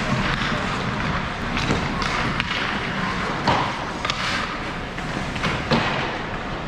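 Ice hockey play heard from rinkside: several sharp clacks and thuds of sticks, puck and boards, over a steady hiss of rink noise.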